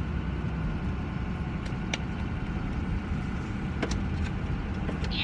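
Steady engine and road drone inside the cab of a moving pickup truck, with a couple of faint clicks in the middle.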